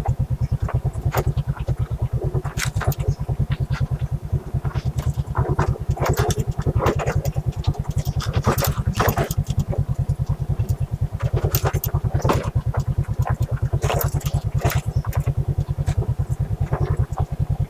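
Motorcycle engine running at low revs with a fast, even low thudding, and scattered clicks and rattles from the bike over rough ground.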